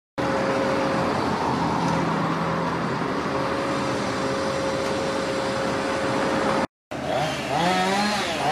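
A MAN TGM fire engine's diesel engine running steadily at idle, with a held hum. After a short break near the end, a chainsaw revs up and down.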